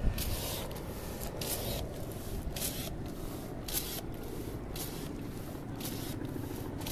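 Water spraying in short hissing spurts from a backpack fire pump's hand-pumped nozzle, about one spurt a second, one with each pump stroke, over a steady low rumble.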